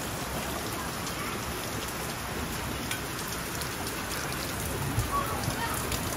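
Steady rain falling on the yard and roof, with scattered drops ticking close by. A brief thump about five seconds in.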